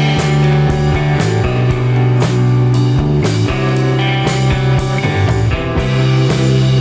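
Background music with guitar and drums and a steady beat.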